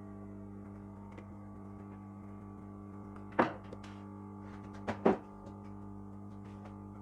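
Hot air rework station running with a steady hum while the power IC on the laptop motherboard is being replaced, with two sharp clicks of metal tools on the bench about three and a half and five seconds in.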